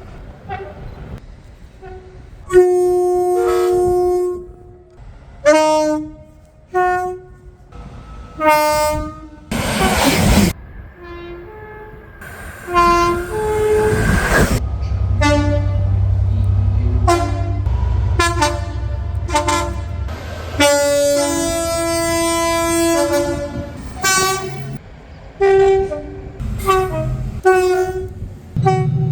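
British train two-tone horns sounded over and over, in short toots and longer held blasts, some changing between their two notes. About ten seconds in comes a brief loud rush of noise. Through the middle, a low rumble of a train runs under the horns.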